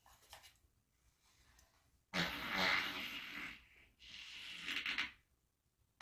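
Two long farts, the first lasting about a second and a half and the second about a second, with a short break between them.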